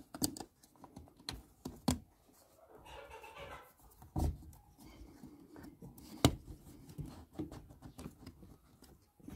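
Hands working the plastic air-filter housing and intake duct of a van's engine: a string of sharp plastic clicks and knocks, the loudest about six seconds in, with a short scraping rustle around three seconds in.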